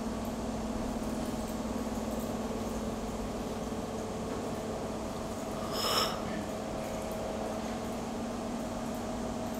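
Steady low machine hum carrying a few faint steady tones, with one brief soft sound about six seconds in.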